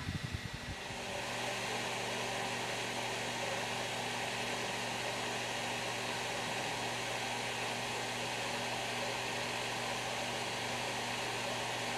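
Reef aquarium's pumps and water circulation running: a steady rushing noise over a low hum, which grows louder about a second in and then holds level.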